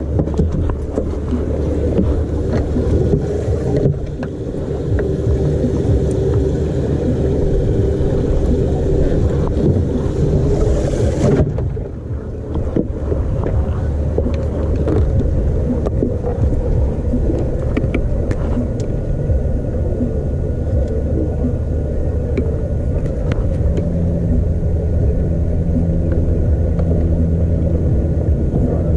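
Boat engine running steadily, a low hum with a hiss over it that cuts off about eleven seconds in.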